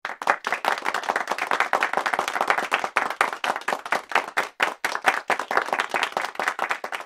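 Applause: hands clapping in a dense, steady patter that starts abruptly and keeps going.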